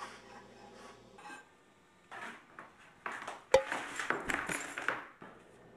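Kitchen clatter of dishes, pans and utensils knocking together, starting about two seconds in. A little past the middle comes one sharp metallic clang that rings briefly.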